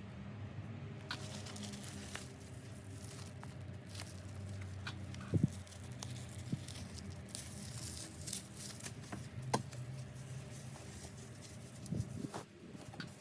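Handling noises: light rustling and scattered small clicks and taps, with a sharper knock about five seconds in and another near the ten-second mark.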